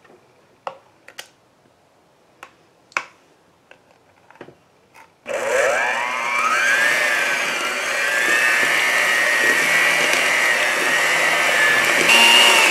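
A few light taps, then an electric hand mixer switched on about five seconds in: its motor whines up to speed and runs steadily as the beaters mix eggs into cookie dough in a glass bowl, getting a little louder near the end.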